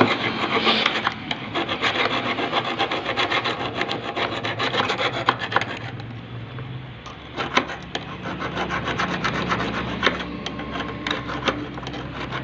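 A flat steel hand tool scraped rapidly back and forth over the metal brush holder plate of a self-starter motor, rasping, to clean the plate before new carbon brushes are soldered on. The scraping pauses briefly a little past the middle, then starts again.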